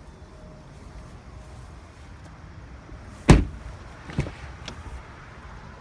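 The door of a 2015 Chevy Tahoe is shut with one loud slam a little past halfway, followed by two lighter knocks about a second later, like a second door's latch being worked.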